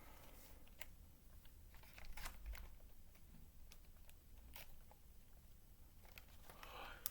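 Faint handling of plastic gummy-candy packaging: scattered light clicks and crinkles, with a short crinkling rustle near the end.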